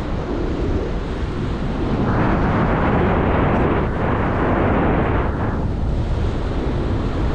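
Wind buffeting the microphone of a paragliding pilot in flight, a steady rush that swells into a stronger gust from about two seconds in and eases off shortly before the end.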